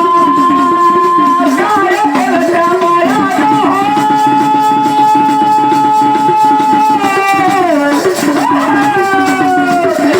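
Devotional song to Mahadev: a singer holds long notes that slide and fall between phrases, with percussion keeping a steady beat underneath.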